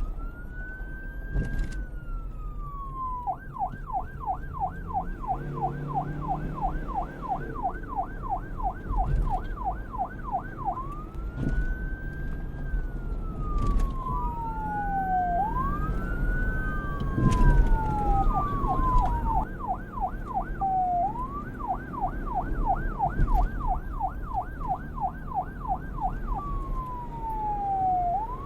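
Police car siren switching between a slow wail that rises and falls over a few seconds and a rapid yelp of about three sweeps a second, going to the yelp twice, over a steady low rumble.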